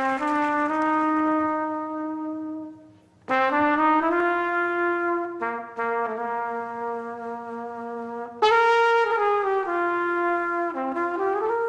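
Brass fanfare led by trumpets, playing long held notes and chords in three phrases: the first dies away about three seconds in, a second enters just after, and a louder third comes in about eight seconds in.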